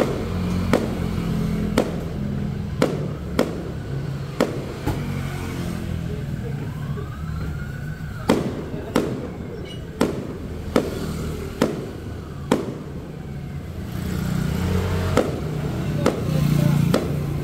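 A fireworks cake firing aerial shells: a run of sharp bangs about a second apart, pausing for a few seconds midway and then resuming. A road vehicle's engine hums underneath at the start and again near the end.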